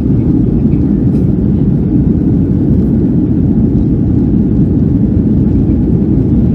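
Boeing 757-200 engines heard from inside the passenger cabin as a loud, steady low rumble.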